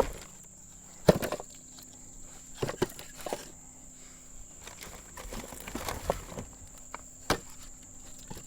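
Scattered sharp knocks and snaps of firewood and kindling being handled while a campfire is built, the loudest about a second in and near the end, over a steady high chirring of crickets.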